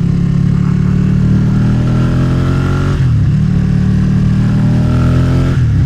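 Motorcycle engine accelerating through the gears: its pitch rises steadily, drops sharply at an upshift about three seconds in, rises again and drops at a second upshift near the end, over a low steady rumble.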